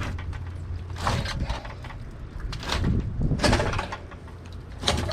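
Irregular knocks and scraping from hand work on a water heater's plumbing fitting as it is forced loose, with clusters about a second in, around three seconds and near the end. A low hum fades out about a second in.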